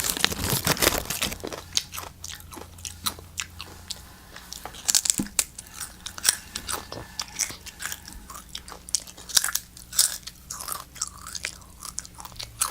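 Close-up crunching and chewing of Doritos tortilla chips, with irregular crisp crunches throughout, thickest in the first second or so.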